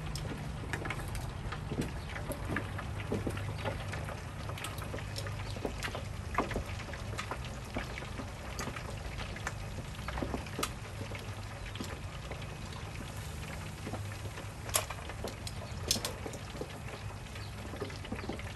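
Hot oil crackling and spattering steadily in an electric deep fryer as a batch of smelt fries, over a steady low hum. Near the end come a couple of sharp clicks of metal tongs on the grill and mussel shells.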